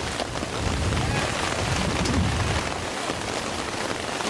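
Heavy rain pouring down in a strong windstorm, with wind rumbling on the microphone that eases about three seconds in.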